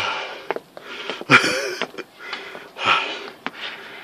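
A person breathing hard, out of breath after cycling up a very steep cobbled hill. There are three deep, gasping breaths close to the microphone, about a second and a half apart.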